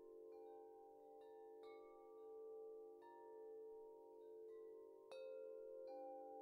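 Faint chime tones struck at irregular moments and ringing on over a steady held chord, with one louder strike about five seconds in.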